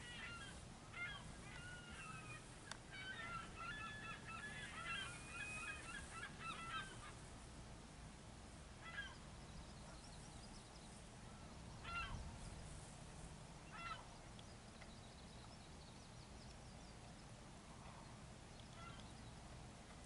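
Geese honking, faint: a busy flurry of overlapping honks over the first seven seconds, then single honks every two to three seconds.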